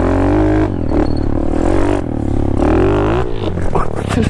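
Dirt bike engine revving, its pitch wavering up and down, easing off briefly about two seconds in before picking up again.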